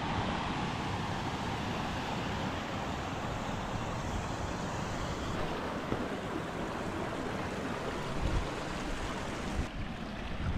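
Steady rushing of a snowmelt stream running among boulders, with wind buffeting the microphone.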